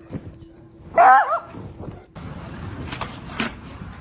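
A dog gives one short, loud, wavering yelp about a second in, followed by a steady rustling noise with a few light knocks.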